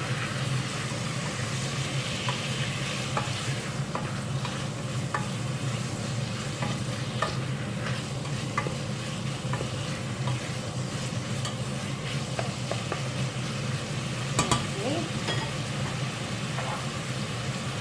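Boneless chicken pieces sizzling in butter with sautéed aromatics in a pan, a steady frying hiss. Light clicks of a utensil stirring come now and then, with one sharper knock about three-quarters of the way through.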